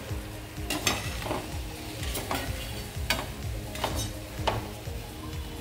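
Methi gota fritters sizzling in hot oil in a steel pan. A perforated steel skimmer scrapes through the oil and clinks against the pan about six times as the browned fritters are lifted out.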